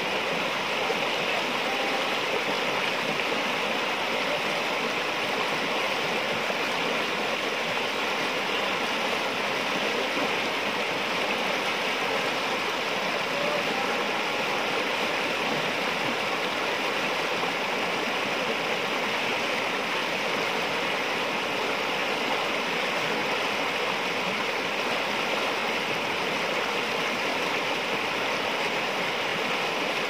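Shallow river rapids: fast water rushing and churning over boulders. It makes a steady, even rush with no breaks.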